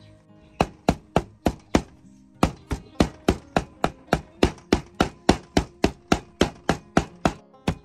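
Meat cleaver chopping pork and prahok together on a wooden chopping board: sharp, regular strikes at about four a second, starting about half a second in with a brief pause near two seconds.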